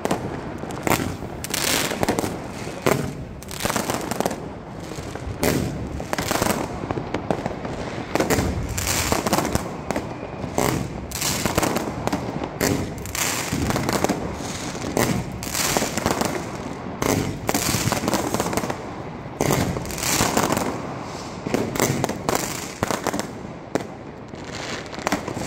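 Fireworks and firecrackers going off on all sides: a dense, irregular barrage of sharp bangs, shell bursts and crackling with no let-up.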